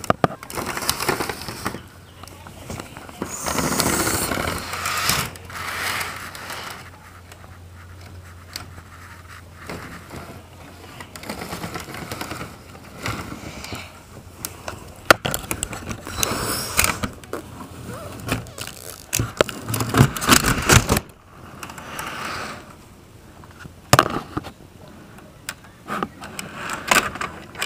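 Model diesel locomotive running on sectional model railroad track: an uneven rattling, scraping roll with a low steady hum through the first ten seconds or so, and several sharp knocks, the loudest about twenty seconds in.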